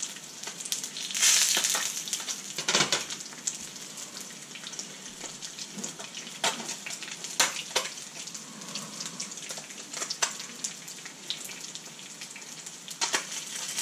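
Silver perch frying in oil in a pan, a steady sizzling hiss with scattered sharp pops, the burner just switched off. A brief louder rush of sizzle comes about a second in.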